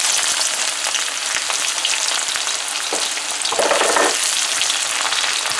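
Sliced onions sizzling steadily in hot oil in a karahi, just added to the pan. A silicone spatula stirs them, with a brief scrape against the pot about three and a half seconds in.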